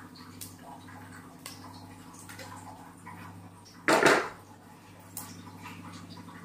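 Whole spices crackling faintly in hot oil while they temper, over a steady low hum. A brief loud clatter about four seconds in.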